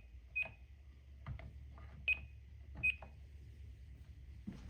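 Alarm system keypad beeping as its keys are pressed: three short high beeps with soft button taps between them. A loud thump comes right at the end.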